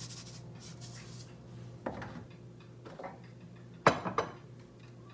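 A rasping of salt being dispensed fades out in the first second. Then come a few kitchen clicks and knocks of containers and utensils being handled, the sharpest about four seconds in, over a steady low hum.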